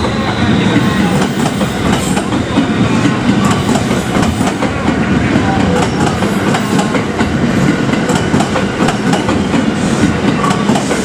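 JR Hanwa Line train passing over a level crossing, its wheels clattering over the rail joints as the cars go by.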